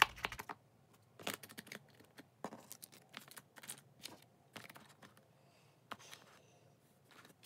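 Light irregular clicks, taps and rustles of a white cardboard iPhone box and its accessory tray being handled, with the lid set back on and pressed down onto the box.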